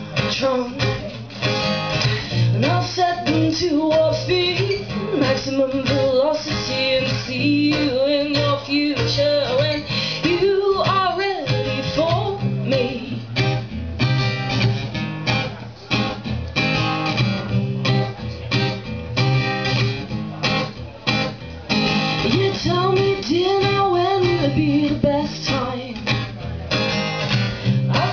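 A woman singing a song while strumming her own acoustic guitar, played live as a solo performance.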